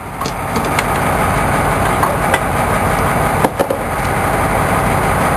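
Fishing boat's engine running steadily, with a few light knocks from the deck.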